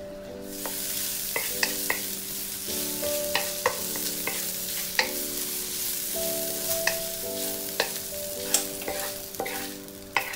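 Vegan char siu strips sizzling in sauce in a wok while a wooden spatula stirs and scrapes them, with scattered sharp clicks of the spatula against the pan. The sizzle starts about half a second in.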